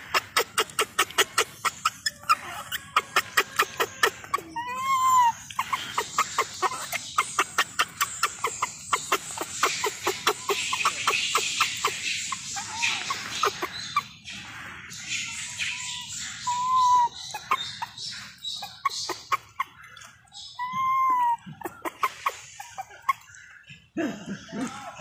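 Baby macaque giving short arched coo calls, rising and falling, five times or so. These are distress calls typical of an infant being refused the nipple during weaning. Through the first half a rapid run of sharp clicks sounds, about five a second.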